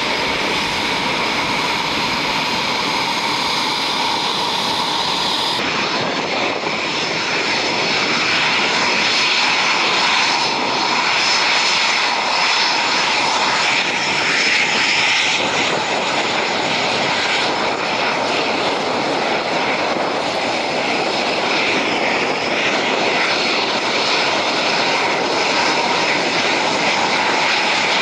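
Military jet engines running on the flight line: Panavia Tornado engines at idle, then, after an abrupt change about six seconds in, Eurofighter Typhoon jet engines running as the fighters taxi, a steady loud jet whine that grows a little louder soon after.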